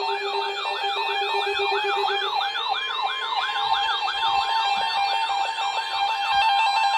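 Weather alert radio sounding its siren-style alarm: a tone sweeping up and down about two and a half times a second, over a steady alert tone. It signals that a warning is about to be broadcast.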